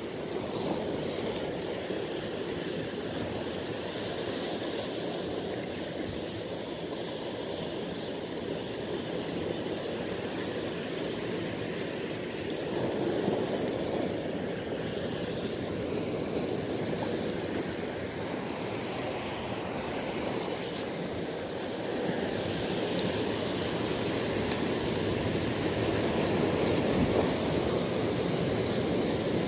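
Sea surf washing and breaking over rocks: a steady rushing noise that grows a little louder about two-thirds of the way through.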